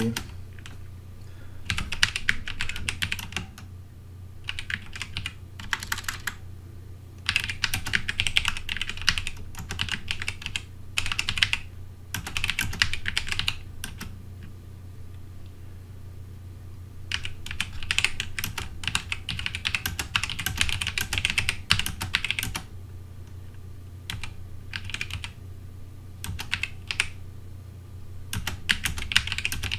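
Typing on a computer keyboard: quick runs of keystrokes separated by pauses of a second or two, over a steady low hum.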